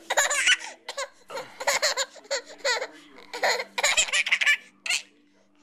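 A baby laughing in a string of bursts, each a quick run of laughs with short breaks between, falling quiet near the end.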